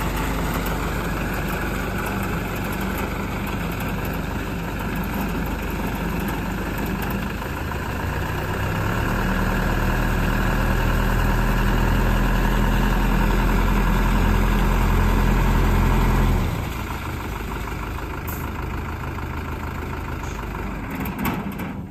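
Tank truck engine running at idle, then raised to higher revs about eight seconds in and held there, driving the discharge pump so the water flow from the tank outlet increases; the engine drops back to idle after about sixteen seconds, over the steady rush of water.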